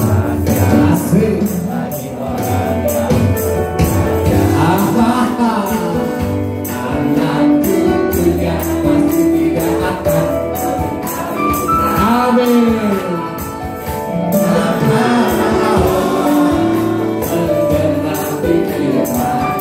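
Upbeat live praise-and-worship music with group singing and a jingling tambourine, the congregation clapping along.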